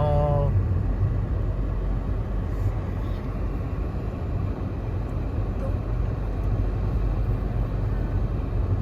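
Steady road noise of a car driving, heard from inside the cabin: a continuous low rumble of engine and tyres. A brief rising voice-like call sounds right at the start.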